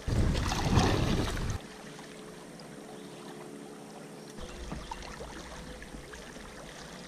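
River water lapping and washing close to the surface around a kayak. There is a louder rush in the first second and a half, then a steady wash.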